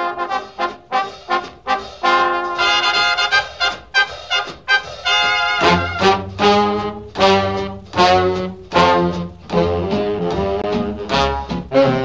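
Background music: an upbeat brass-led swing tune in short, punchy notes, with a fuller, lower part coming in about six seconds in.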